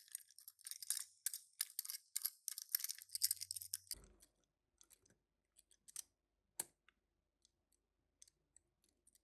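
Toy packaging being opened by hand: about four seconds of crisp crinkling and snipping, then a soft thump and a few scattered light clicks of small plastic or die-cast pieces.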